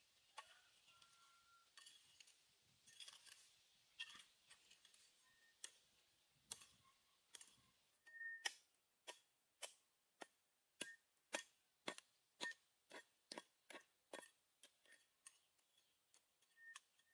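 A small hand hoe strikes and scrapes into dry earth with sharp clicking knocks. The knocks are sparse at first, then come steadily about twice a second from about halfway through.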